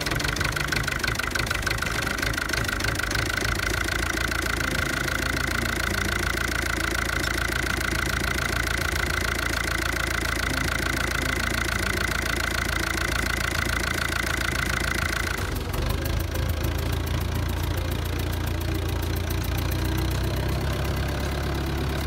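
White Field Boss 2-60's four-cylinder diesel engine running steadily with a knocking rhythm. A high steady tone rides over it and stops suddenly about fifteen seconds in, after which the low engine note grows stronger: the sound changing as the freshly bled injector line is tightened up.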